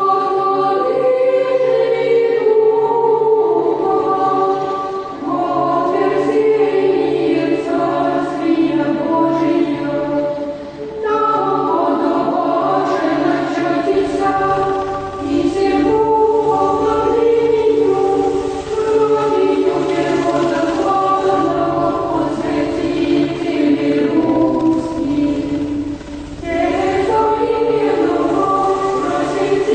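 Soundtrack music: a choir singing in layered, sustained voices, in phrases separated by short breaths.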